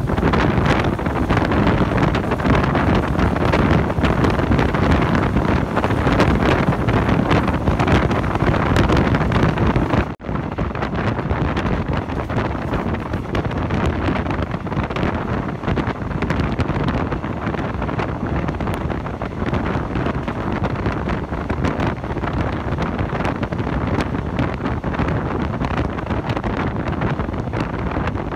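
Wind buffeting the microphone from the window of a moving train, over the steady running noise of the train. About ten seconds in the sound breaks off for an instant and resumes a little quieter and duller.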